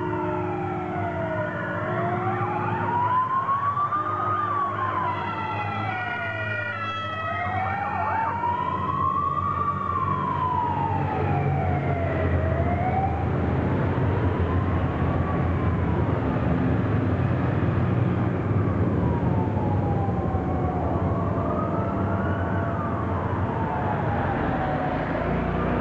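Police motorcycle sirens wailing, slowly rising and falling about every five seconds, with a second siren stepping quickly in pitch for a few seconds near the start. From about halfway, motorcycle engines grow louder as they ride past.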